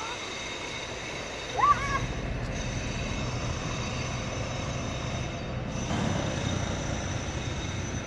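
Steady low rumble of city street traffic, with a short rising squeal about two seconds in.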